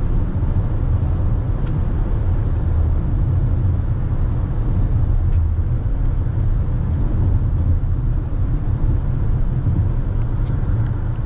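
Road noise inside a moving Toyota car's cabin: a steady low rumble from the car on the road, holding even with no change in speed.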